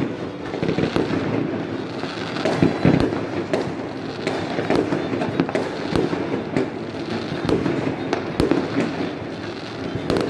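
Many fireworks and firecrackers going off at once: a dense, continuous crackling with frequent sharp bangs overlapping one another.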